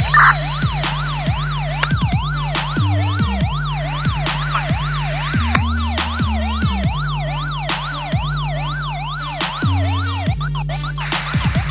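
A siren wailing rapidly up and down, about two rises and falls a second, over an electronic music track with a deep bass line that steps between notes.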